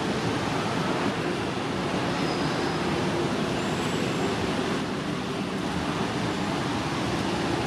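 Steady outdoor background noise with no distinct events, and a couple of faint, brief high whistling tones in the middle.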